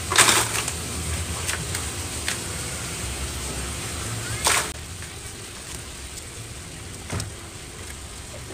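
Hand and small trowel working loose potting soil in a plastic basin: short scraping, rustling strokes, the loudest about a quarter of a second in and another about four and a half seconds in, a smaller one near seven seconds, over a steady low background rumble.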